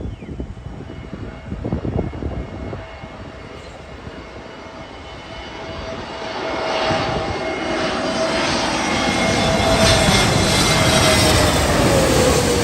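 Jet airliner passing low overhead: its engine noise and whine build from about halfway through, peak near the end, and the whine drops in pitch as it passes. Wind buffets the microphone in the first few seconds.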